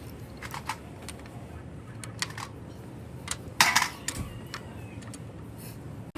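Workshop clatter: irregular light clicks and knocks of metal parts and tools being handled, over a steady low hum, with the loudest knock a little past halfway.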